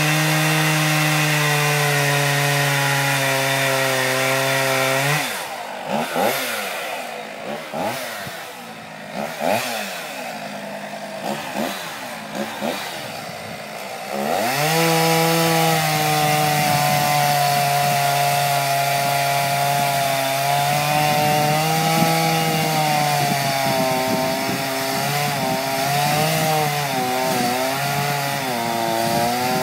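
Gas chainsaw running at full throttle, cutting into a large tree trunk. About five seconds in it drops to idle, with several short blips of the throttle, then revs back up to cut again about fifteen seconds in. Near the end the engine note dips and wavers as the saw works in the cut.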